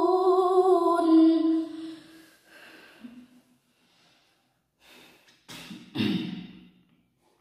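A woman reciting the Quran in a melodic chant, ending a verse on a long held vowel whose pitch wavers and slowly falls before fading out about two seconds in. Then there are soft breaths, with two louder breaths about five and a half and six seconds in.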